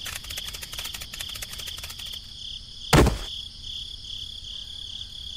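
Crickets chirping in a steady, pulsing high trill, with a single dull thump about three seconds in.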